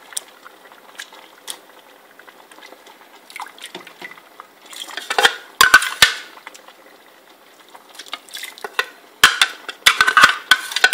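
Silicone spatula scraping and knocking against a plastic blender jar while blended rice is poured into a pot of bamboo-shoot broth. Mostly quiet with a few scattered clicks, and two spells of clatter about five and nine seconds in.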